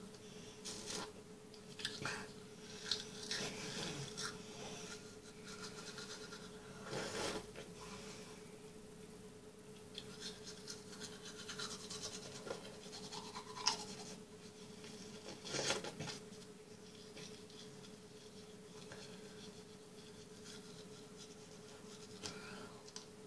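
Electric toothbrush running with a steady hum while teeth are brushed, with irregular scrubbing and scraping noises from the bristles.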